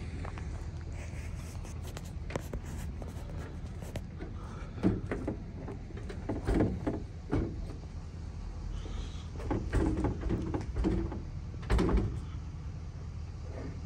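A few scattered knocks and clunks, loudest about five and twelve seconds in, over a steady low hum.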